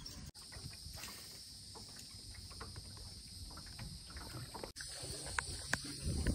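Outdoor river ambience heard from a small boat: a steady high insect drone over a low wind rumble on the microphone, with a few light clicks and knocks in the last couple of seconds.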